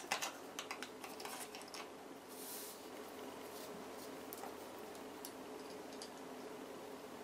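Small metal parts clicking and clinking as they are handled: an L-bracket with its steel pin and brass thumb screw set on a T-track rail, then small set screws picked up. A quick cluster of sharp clicks in the first two seconds gives way to a few faint ticks over a steady low hum.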